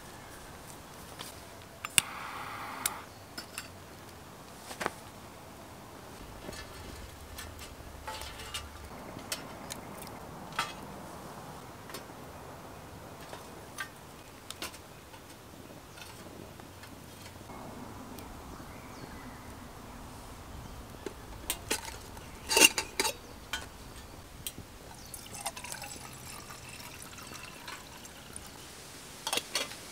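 Liquid sounds among scattered clicks and knocks, with a cluster of louder knocks about two-thirds of the way through.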